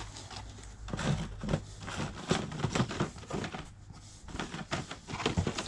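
Carded action figures being handled and shuffled: plastic blister packs and card backs clicking, tapping and crinkling irregularly.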